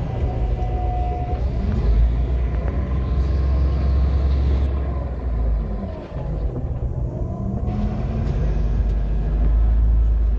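City bus diesel engine and road rumble heard from inside the bus as it drives. The engine note rises, drops away briefly about six seconds in, then climbs again.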